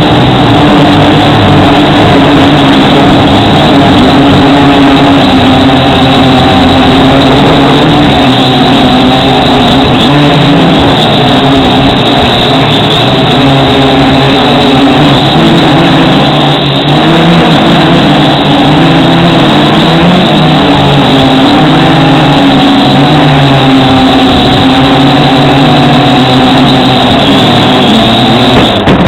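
Small drone's electric motors and propellers whining loudly and steadily, their pitch wavering up and down as it is flown in strong wind.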